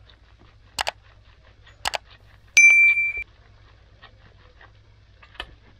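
A bright, bell-like metallic ding that rings for about half a second, the loudest sound here, after two sharp clicks about a second apart; another faint click comes near the end over a faint low hum.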